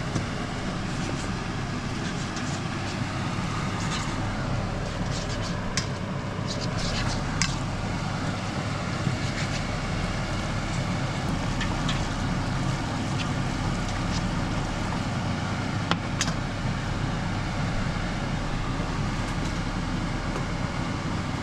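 Spaghetti sizzling in a frying pan as it is tossed with kitchen tongs, with occasional sharp clicks of the tongs against the pan over a steady low hum.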